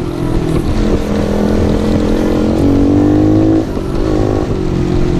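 Small single-cylinder four-stroke engine of a 110cc pit bike being ridden, revving up and easing off twice, at the start and about three and a half seconds in, then running at lower revs.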